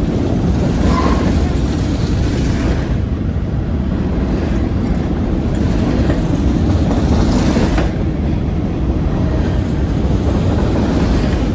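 Freight train of enclosed autorack cars rolling past below, a steady rumble of wheels on the rails.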